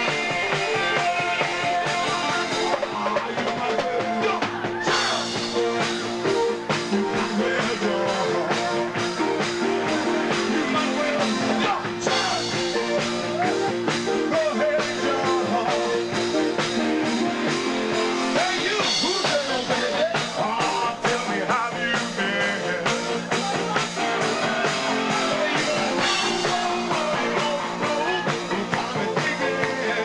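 Live dance band playing a rock-style number: electric guitar, keyboards and drum kit with a lead singer.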